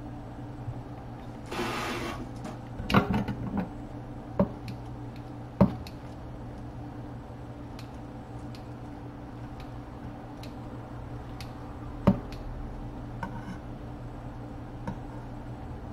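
Kitchen handling sounds: a short hiss near the start, then scattered sharp knocks and clatters of utensils against a bowl and counter, the loudest about five and a half and twelve seconds in, over a steady low hum.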